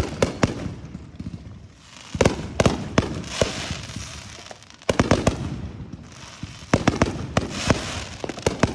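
Consumer fireworks going off: volleys of sharp bangs with crackling in between, a few seconds apart, with a brief lull about two thirds of the way through before another volley.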